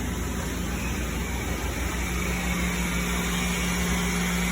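Mazak VTC-20 vertical machining center running: a steady mechanical hum and hiss, with a low steady hum tone that comes in about two seconds in and holds.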